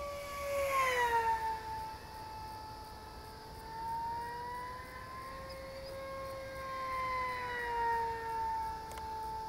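Durafly EFX Racer electric RC plane flying past, its motor and propeller making a high, steady whine. The pitch drops as it passes about a second in, then rises and falls again as it comes round for further passes.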